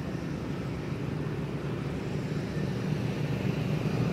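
A vehicle engine running steadily with a low hum, growing a little louder near the end.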